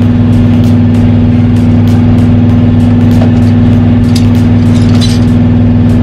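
Engine idling steadily with a constant low hum and faint regular ticks.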